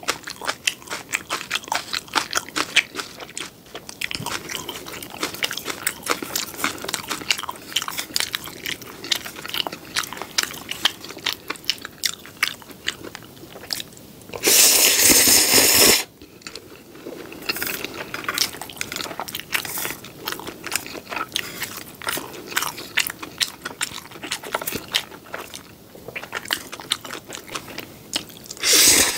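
Close-miked eating sounds of black bean noodles (jjapaghetti): wet chewing and mouth clicks throughout, broken by a loud noodle slurp about halfway that lasts about a second and a half, and a shorter one at the very end.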